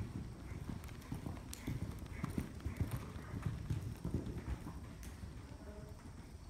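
Horse cantering on soft dirt arena footing: a run of dull hoofbeats, loudest a few seconds in as it goes over a jump, then fading as it moves away.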